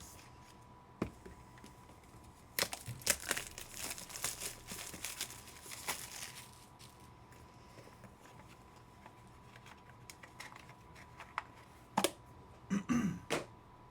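Trading-card pack wrappers being torn open and crinkled, a run of crackling from about two and a half to six and a half seconds in, then a few sharp clicks and knocks near the end.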